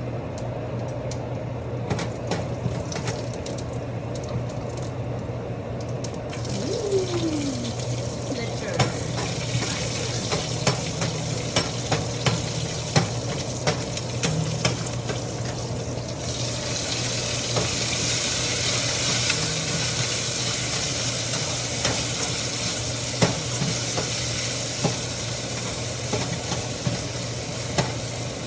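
Food frying in hot oil in a pan, with a utensil stirring and knocking against the pan many times. The sizzle gets noticeably louder and hissier about halfway through, over a steady low hum.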